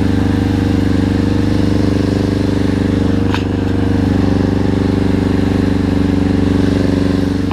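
Suzuki RF600 four-cylinder motorcycle engine in an off-road buggy, running steadily at low revs with an even, unchanging note.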